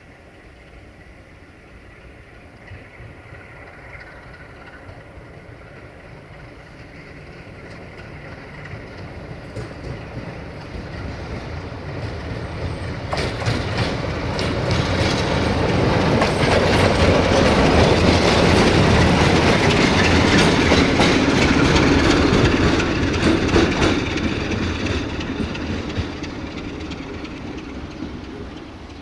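CFR class 60 (060-DA) Electroputere LDE2100 Sulzer-engined diesel-electric locomotive driving past: its engine grows steadily louder as it approaches. Its wheels click over rail joints and points as it passes close by, from a little before halfway to about three quarters through, and the sound then fades as it moves away.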